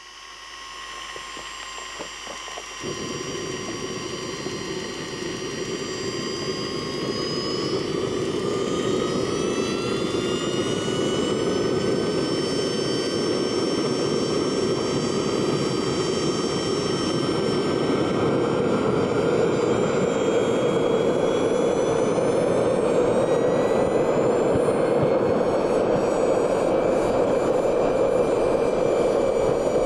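Swiwin SW120B RC turbojet engine throttling up: its whine climbs in pitch and its roar grows louder through the first half, then both hold steady at high power.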